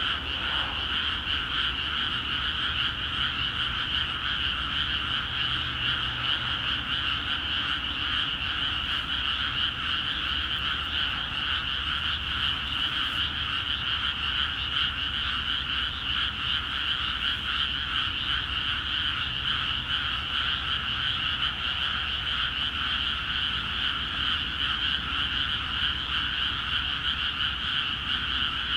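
A dense chorus of many frogs calling together in a flooded rice paddy, croaking continuously and overlapping with no pauses. This is the chorus that starts once water is let into the paddies.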